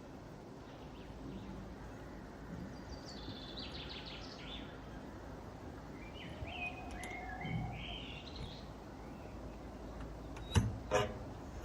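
Birds chirping in short, high calls over steady outdoor background noise, with two sharp knocks close together near the end.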